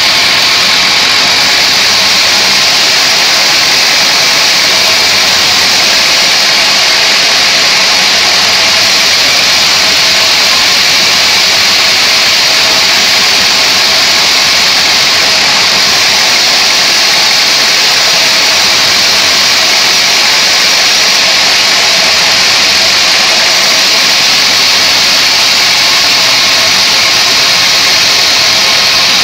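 Homemade sawmill bandsaw running with its blade ripping lengthwise through a squared mahogany log: a loud, steady hiss of sawing over the machine's drone, with no break.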